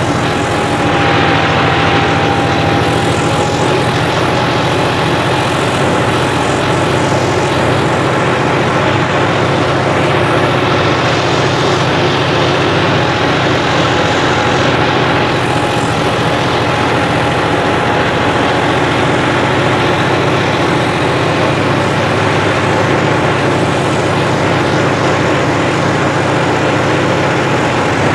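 John Deere 5405 tractor's modified turbo diesel engine running steadily under heavy load, pulling ploughs through hard ground with the tyres slipping. A steady high whine sits above the engine note.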